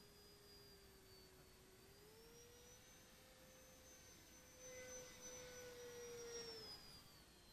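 Faint whine of a Starmax F-5 RC jet's 70 mm twelve-blade electric ducted fan in flight. Its pitch rises about two seconds in, holds, and falls near the end, and it grows louder for a couple of seconds just after the middle.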